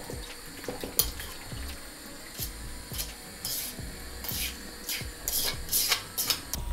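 Metal utensil clinking and scraping against cookware: one sharp clink about a second in, then a run of short scrapes, like a spoon working in a pot or dish.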